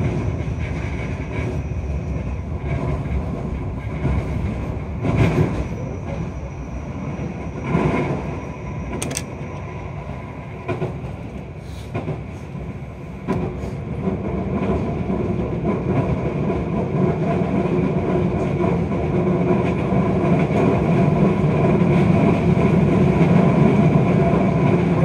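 Keio 5000-series electric train running at speed, heard from inside the passenger car: a steady rumble of wheels on rail with a few sharp clicks in the first half. The rumble grows louder from about halfway through.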